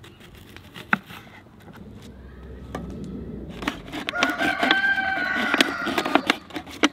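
A rooster crowing once in the background, a long pitched call that starts about halfway through. Knife clicks and cuts on a wooden cutting board come before it and near the end.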